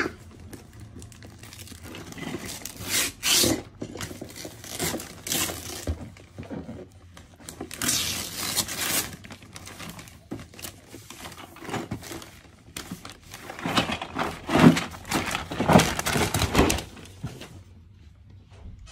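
Packaging being torn and crumpled as a present is unwrapped: irregular rustling and tearing, with the busiest stretches in the middle and near the end, stopping shortly before the end.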